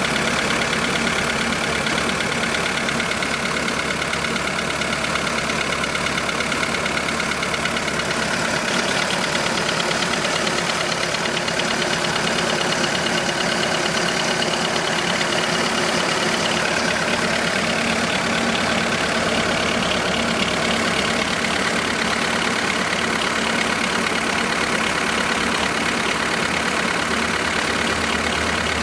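2005 VW Polo 1.4 engine idling steadily from cold, with a rapid clicking running through the idle that the owner cannot identify.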